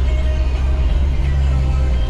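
Background music with a heavy bass line.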